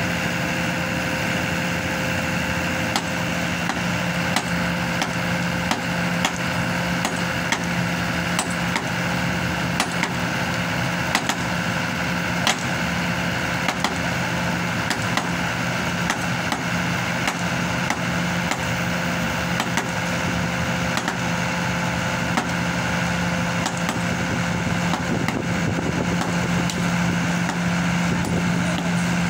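Hydraulic static pile driver's engine and hydraulic power unit running steadily with a constant hum, with scattered sharp clicks and knocks.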